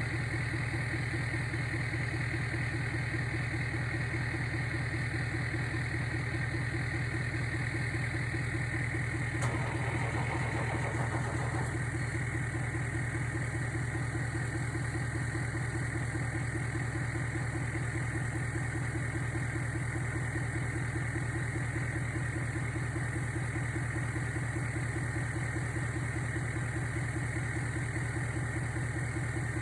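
Vehicle engine noise: a steady, even drone with a fast regular pulse. A brief louder rasp comes about ten seconds in.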